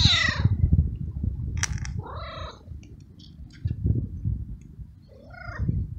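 Young tabby cat meowing three times: a loud meow falling in pitch at the start, then two shorter meows that rise and fall, about two and five seconds in. A low rumble runs underneath throughout.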